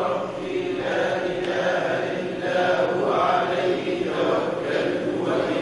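A group of voices reciting a Quran verse together in a chant, repeating the line after the teacher during a recitation lesson.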